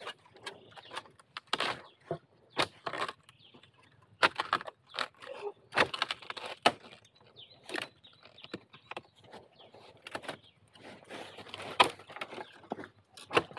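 Repeated, irregular chopping strikes of a blade into bamboo while cutting out a wild bamboo shoot from the clump, with rustling of stems and dry leaves between the blows.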